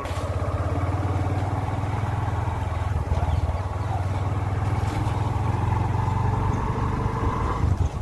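Motorcycle engine running steadily at low speed while riding along a dirt forest track.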